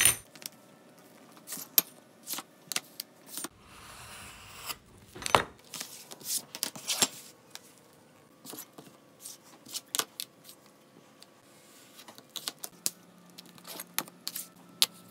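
Metal straight bar and steel ruler clinking and tapping as they are set down and lined up against leather on a cutting mat: a string of separate light clicks and knocks, with a soft scraping stretch about four seconds in.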